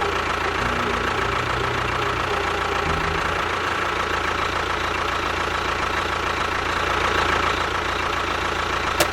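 A homemade mini tractor-bulldozer model running steadily, with a constant high whine over a low pulsing rumble. A few sharp clicks come right at the end.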